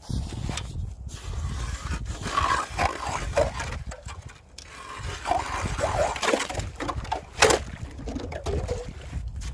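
Hand ice auger drilling down through lake ice: a steady grinding rumble of the blades cutting, with squeaky creaks and scraping, and one sharp crunch about seven and a half seconds in.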